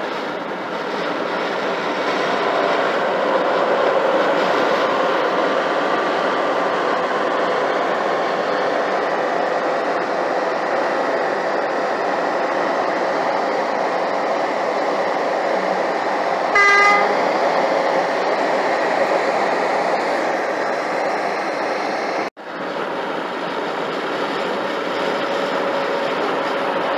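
Steady road and tyre noise inside a car cruising at highway speed. A short, single horn blast sounds about two-thirds of the way through.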